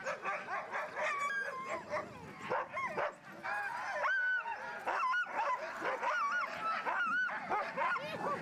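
A pack of sled huskies yelping and howling over one another in many short, rising-and-falling cries, the excited clamour of dogs waiting to be hitched and run.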